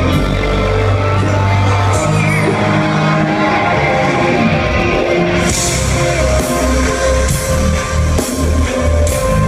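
Live rock band playing loud through a concert hall's PA: electric guitar and drums over a changing bass line. About five and a half seconds in, a steady kick-drum beat and cymbals come in.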